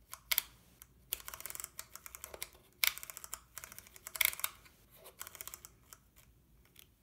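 Canon EOS 3 film camera's control dial clicking through its detents in quick runs of small clicks, several runs in a row, as the shooting mode is stepped through.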